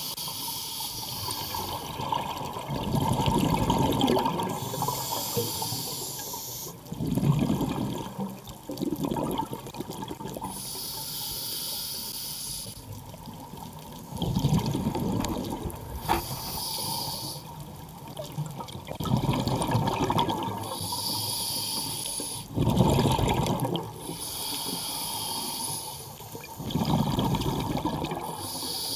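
Scuba diver breathing through a regulator underwater: a hiss on each inhale and a gurgling burst of exhaled bubbles on each exhale, one breath every four seconds or so.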